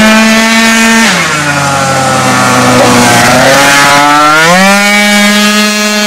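Piaggio Zip racing scooter's engine at high revs. Its pitch falls about a second in and holds lower, then climbs back up a little after four seconds as the scooter accelerates away.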